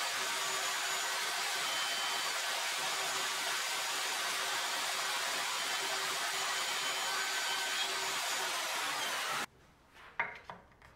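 Bosch plunge router with a dust-extraction hose running steadily as it routes a slot for a floating tenon. The sound cuts off suddenly near the end, followed by a few light wooden taps as a wooden tenon strip is set into the routed slot.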